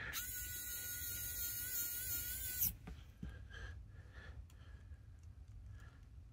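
Cordless electric precision screwdriver running with a steady high whine for about two and a half seconds, then stopping abruptly; faint small ticks follow.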